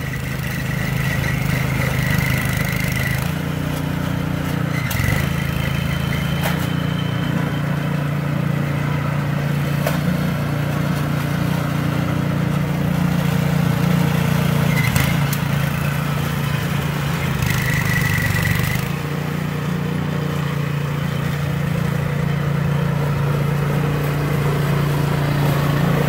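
Snowblower's Princess Auto replacement engine running steadily at idle, not yet throttled up. A high, thin squeal comes and goes several times over the engine.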